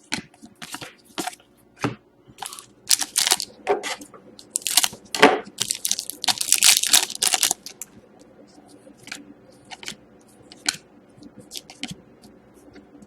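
A trading card pack's wrapper being torn open and crinkled, with the cards inside handled: a run of crackling rustles for most of the first eight seconds, then only faint light ticks.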